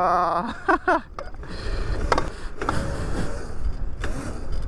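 Wind rushing over the microphone while riding an electric minibike, with a few short, wavering squeals in the first second.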